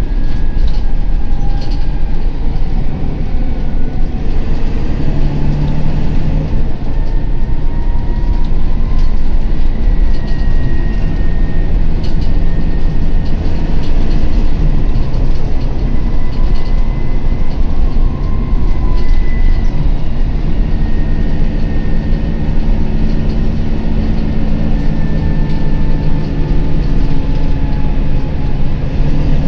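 Volvo B9TL double-decker bus under way, heard from the upper deck: a loud, steady low rumble of engine and road noise, with frequent rattles from the body and fittings and faint whines that drift up and down in pitch as the bus goes.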